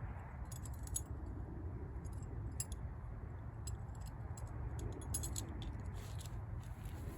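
Scattered light clicks and clinks, some in quick little clusters, from camping gear being handled while a small tent is pitched, over a steady low rumble.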